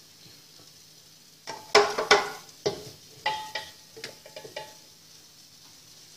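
Small metal pot clattering and knocking against the water-bath pan as the beeswax comb inside it is handled. A quick burst of knocks about a second and a half in, the loudest near two seconds, then lighter taps with a brief metallic ring that die away by about four and a half seconds.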